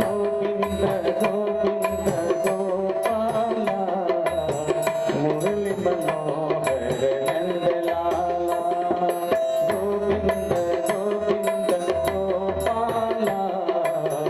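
Devotional bhajan music: tabla strokes keep a steady rhythm under sustained melodic notes that move in steps.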